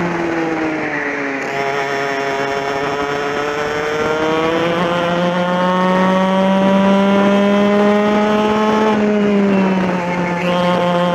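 TKM two-stroke kart engine at racing revs. The revs drop in the first second or so, climb slowly for several seconds, dip briefly near the end and pick up again.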